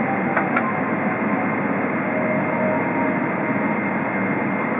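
Steady cabin noise of a Boeing 777-300 taxiing at low speed, its jet engines at idle, heard from inside the cabin. Two short clicks come about half a second in.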